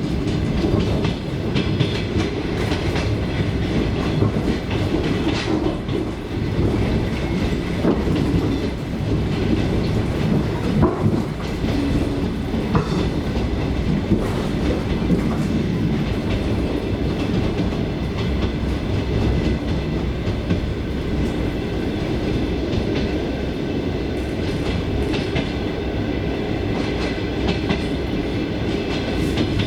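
A suburban commuter train heard from inside a carriage while under way: steady running noise with the clatter of the wheels over the rails.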